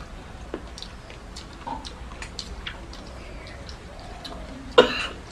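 Close-up eating sounds: wet chewing and lip-smacking clicks from mouthfuls of rice and curry eaten by hand, with one louder mouth sound near the end.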